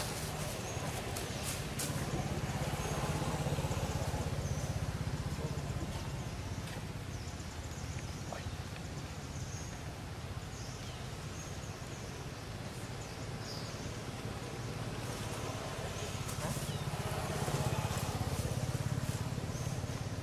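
Motor scooters passing on a nearby road, their low engine sound swelling and fading twice, over a steady outdoor background with scattered short high chirps.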